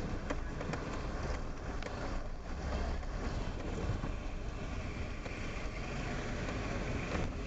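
Car moving slowly along a flooded street, heard from inside the cabin: a steady low rumble of engine and tyres running through standing water.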